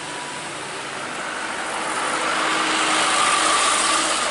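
A tanker truck driving past close by. Its engine and tyre noise grows steadily louder and is loudest near the end.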